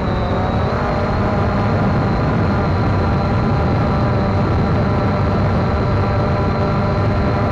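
Quadcopter drone's motors and propellers buzzing steadily in flight, a hum of several tones together that wavers briefly in pitch near the start.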